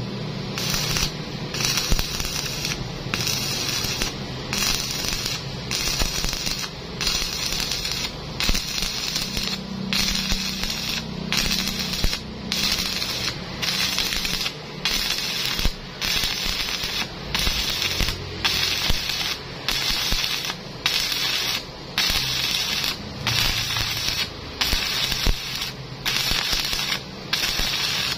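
Electric stick-welding arc crackling and frying on thick plate, with a brief drop in the crackle roughly every three-quarters of a second.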